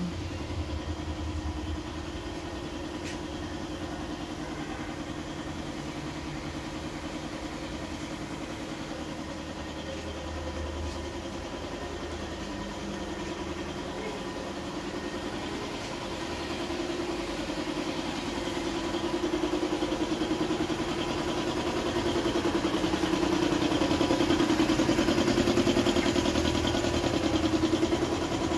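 An engine running steadily, growing louder over the second half.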